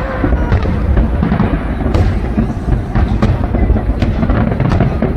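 Fireworks going off in quick succession: sharp bangs roughly once a second over a continuous deep rumble of bursting shells.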